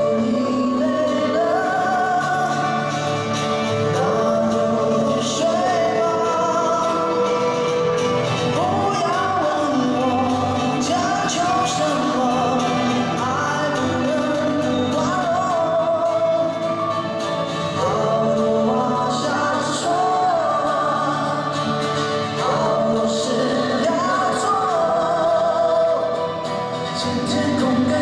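Live amplified pop-rock band playing: two male singers' lead vocals over acoustic and electric guitars, drums and keyboards, without a break.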